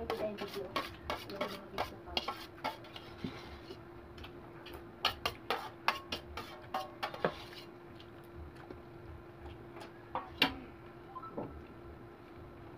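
Cutlery clinking and scraping against dishware during a meal, in irregular clusters of sharp clicks, over a faint steady hum.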